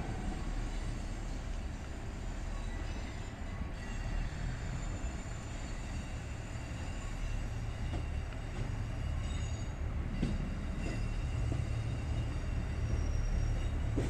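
KiHa 85 diesel multiple unit rolling slowly over the points and passing beneath, its diesel engines running with a low rumble that grows louder near the end. A few light clicks come from the wheels crossing rail joints.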